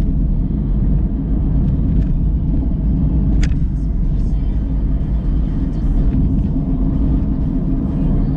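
Steady low rumble of a moving car heard from inside the cabin: engine and road noise, with a brief click about three and a half seconds in.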